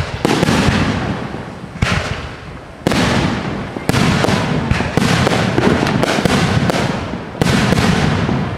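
Fireworks display: a string of sharp bangs from bursting shells, roughly a second apart, each trailing off in a dense crackle and rumble before the next one.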